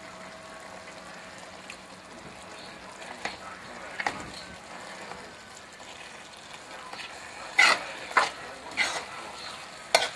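Seasoned mackerel sizzling steadily in a pot, with a spoon knocking and scraping against the pot about six times as the fish is broken up; the loudest knocks come a little past halfway.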